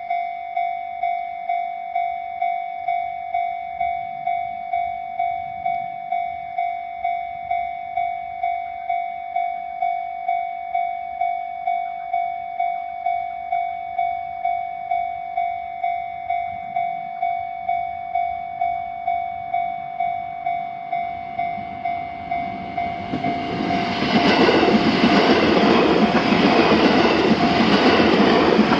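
Japanese level-crossing warning bell ringing steadily, about two electronic dings a second. About 23 seconds in, a train passes over the crossing and its loud rumble and wheel noise cover the bell.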